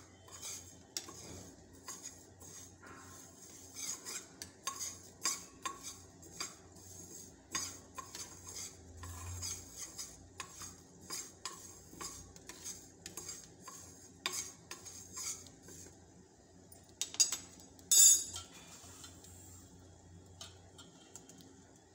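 A metal spoon scrapes and clicks against a small steel pan, stirring fenugreek seeds as they dry-roast. Near the end comes a louder metallic clatter.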